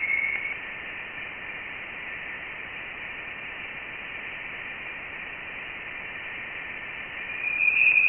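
Voyager 1 plasma wave instrument recording of interstellar plasma oscillations played as sound: a narrow band of hiss carrying a steady tone that fades out about half a second in. The hiss then holds steady until a louder, higher tone comes in near the end. The tone's pitch follows the plasma density, so the higher tone marks denser interstellar plasma.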